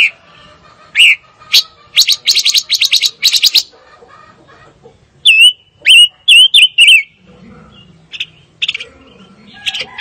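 Silver-eared mesia singing: scattered sharp chirps and a quick run of repeated notes, then about five or six loud, clear whistled notes in quick succession, each with a quick bend in pitch.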